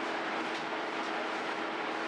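Machinery running steadily, a constant noise with a low hum that holds one pitch throughout.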